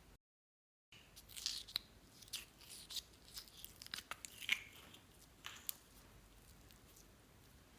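Clear slime being squished and worked by hand, making irregular sticky pops and crackles. They begin about a second in, after a brief dead silence, and die away near six seconds.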